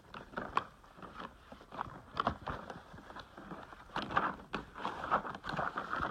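A socket set's packaging being handled and opened: irregular crinkling, rustling and clicking, busiest around the middle and near the end.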